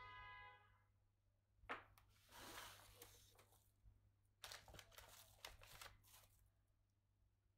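Faint scraping and rustling in irregular bursts as a bamboo tube is worked by hand, the longest bursts a couple of seconds in and around five seconds in. A short held tone fades out at the very start.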